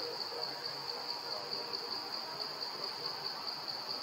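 Insect chorus in the forest: a steady, high-pitched trill with a fast, regular pulsing.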